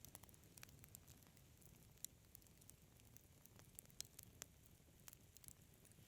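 Wood fire crackling softly, with irregular sharp pops over a faint steady hiss; the loudest pops come about two seconds in and around four seconds in.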